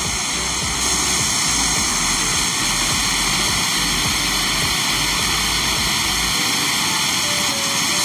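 Steady roar of a waterfall, an even rushing noise, with a low rumble underneath that stops about six seconds in.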